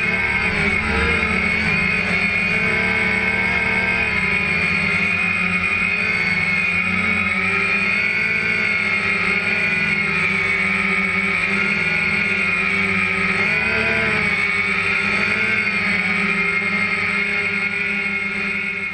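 DJI Phantom 1 quadcopter's electric motors and propellers whining steadily, heard up close from the camera mounted on the drone. The pitch wavers as the motor speeds change, most noticeably about a second in and again near two-thirds of the way through.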